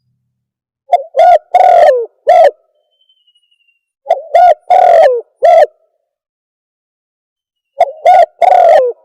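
Recorded lure call of the terkuku dove: a phrase of four loud coos, the third drawn out, repeated three times with pauses of a second or two between.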